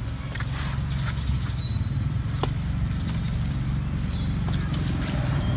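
A steady low rumble under scattered small clicks and smacks of people chewing and handling soft cakes.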